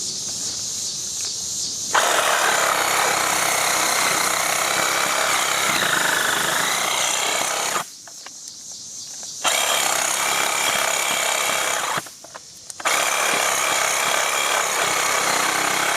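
Cordless Ryobi 18V power saw cutting into wood, a dense buzzing cut that starts about two seconds in. It stops briefly twice, near eight and near twelve seconds, then runs on again.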